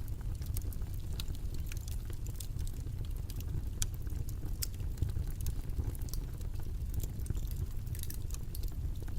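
Steady low rumbling background noise with small irregular clicks and crackles scattered through it.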